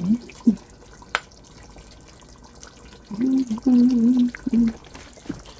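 Metal spoon scooping wet curry pork out of a stainless steel pot into a plastic bowl, with one sharp clink about a second in. A voice hums for a second or two past the middle, the loudest sound.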